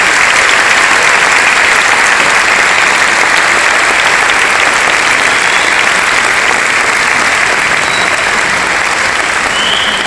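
Audience applauding: loud, steady clapping from a large crowd after a choir's song, easing slightly near the end.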